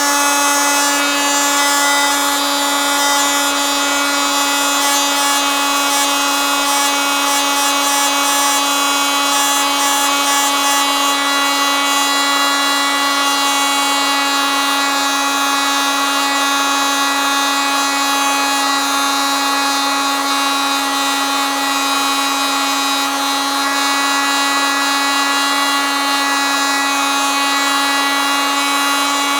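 Oscillating multitool running steadily: a loud, unchanging high-pitched buzz with a constant pitch.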